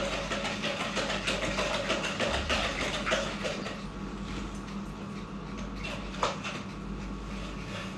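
Pen scratching across paper in quick drawing strokes, a busy run of short scratches and ticks that thins out about halfway, with one sharper tick a little later. A low steady hum sits underneath.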